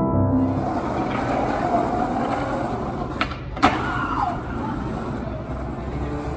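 Steady background hum and hiss of location ambience, with two sharp clicks a little after three seconds in.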